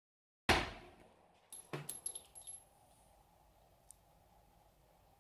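A single sharp report from a Tokarev TT-33 pistol (7.62×25 mm) about half a second in, dying away quickly. About a second later come several light metallic clinks: the spent brass case bouncing on the floor.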